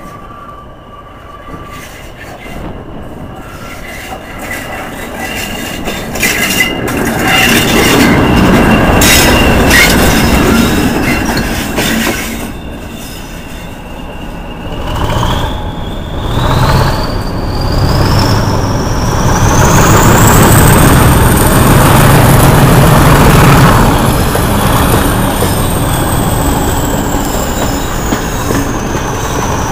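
Diesel-hauled train heard from the coach behind the locomotive, with wheel clicks over the rail joints. About halfway through, the locomotive's engine note builds into a heavy rumble, and a high whine climbs steadily in pitch.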